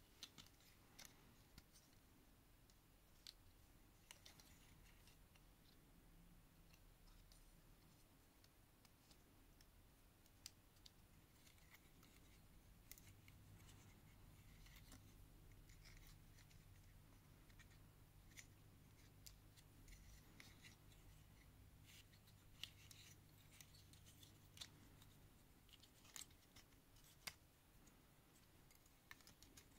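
Faint, scattered clicks and scratching of the plastic parts of a Transformers Legacy Skullgrin action figure being handled and transformed, its limbs and panels snapping into place, with a low hum underneath for a stretch in the middle.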